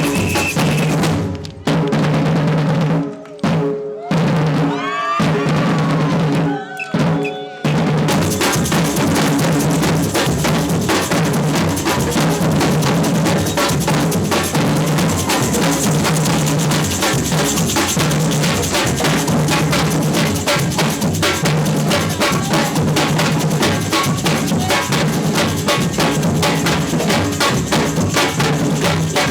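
Samba percussion band with bass drums and snares playing a loud groove. In the first eight seconds the drums cut out in several short, sharp breaks and come back in; after that the full rhythm runs on unbroken.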